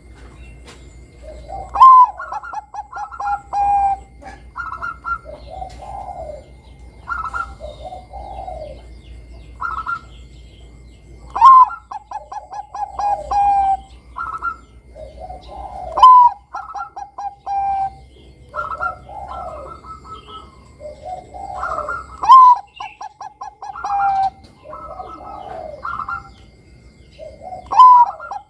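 Bangkok-strain zebra dove (perkutut) singing its cooing song. Five loud phrases each open with a sharp note and run into a quick series of coos, with softer cooing notes between them.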